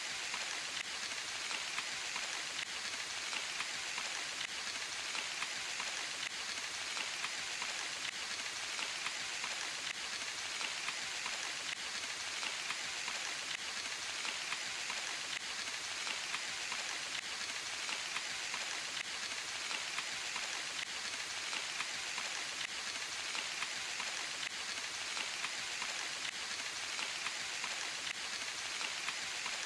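Steady rain falling in a forest: a dense, even hiss of many small drops that does not change.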